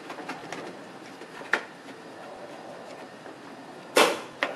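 Plastic trim strip below a Toyota Tacoma headlight being pressed and worked into place by hand, with light clicks and a louder short snap about four seconds in.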